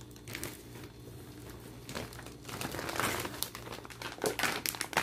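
Plastic shopping bags crinkling and rustling as a bagged grocery item is pulled out of a shopping bag, in irregular bursts that get busier about halfway through.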